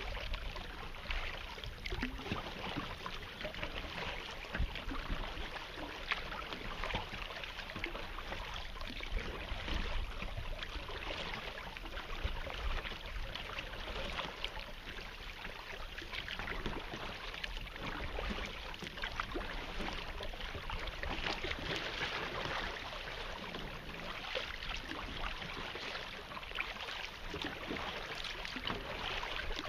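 Water lapping and trickling against the hull of a plastic kayak moving along under paddle, with small splashes and drips and a low wind rumble on the microphone.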